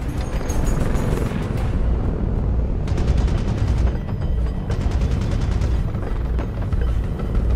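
Battle sound in a film mix: bursts of rapid automatic gunfire over a heavy low rumble, with a dramatic music score underneath.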